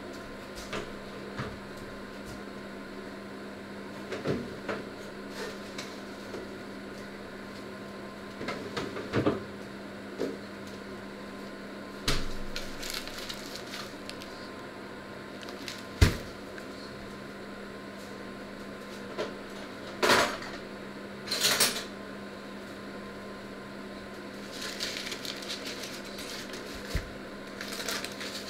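Kitchen handling noises over a steady low hum: scattered knocks and clatter of pots and utensils, with one sharp knock about halfway through. Several bursts of rustling follow in the second half.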